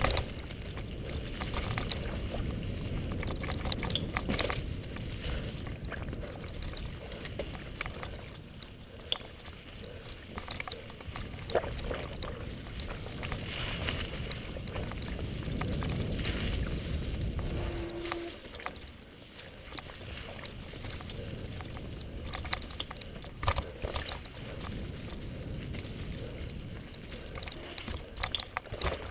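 Mountain bike rolling along a dirt trail covered in dry leaves, with steady wind rumble on the microphone and tyre noise. Scattered clicks and rattles come from the bike over bumps and roots. The rumble eases about two-thirds of the way through.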